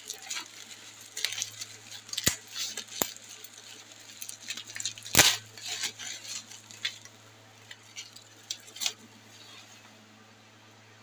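Plastic bubble wrap crinkling and rustling as hands unwrap a product from its packaging, with several sharp clicks, the loudest about five seconds in; the rustling dies away near the end.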